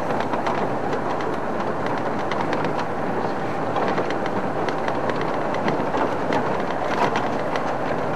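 Safari game-drive vehicle driving over a rough dirt track: steady engine and road noise with constant rattling and clatter from the bodywork.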